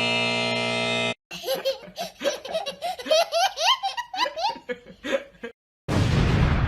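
Cartoon sound effects: a held electronic chord that cuts off about a second in, then a run of giggling laughter, then a sudden burst of rushing, explosion-like noise near the end.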